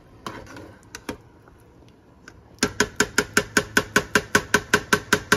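A cooking spoon knocking against the side of a pot of chili while stirring. A few scattered taps come first, then about halfway in a quick, even run of about twenty ringing knocks, six or seven a second.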